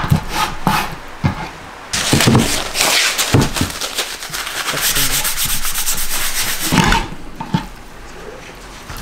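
A knife chops through raw chicken onto a wooden cutting board a few times. Then, about two seconds in, a paper towel is rubbed and crumpled between hands for several seconds.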